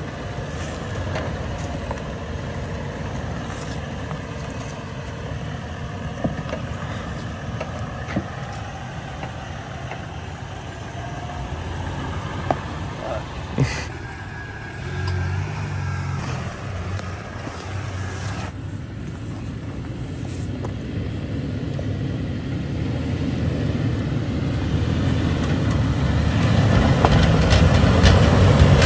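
Off-road Toyota SUV engine running at low speed as it crawls up a steep dirt trail, revving briefly about halfway through. There are a few sharp clicks just before that, and the engine grows louder near the end as it climbs toward the camera.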